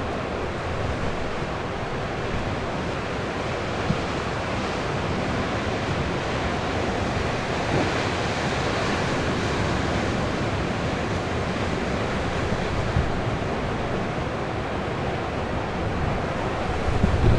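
Storm-driven sea surf with a steady, dense rush of breaking waves, swelling a little midway. Strong wind buffets the microphone with low gusty thumps near the end.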